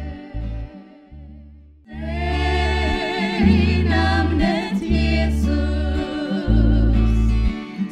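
Three women singing a gospel song in harmony to a strummed acoustic guitar. A phrase dies away, and after a short pause the singing comes back in full about two seconds in.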